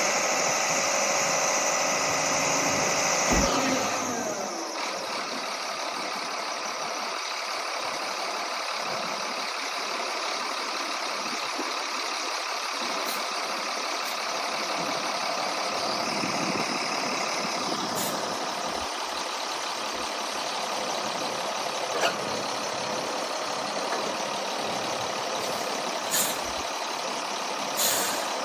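Volvo A25D articulated dump truck's diesel engine running, first at raised revs and then settling to a lower, steady idle about four seconds in. A few brief clicks come later.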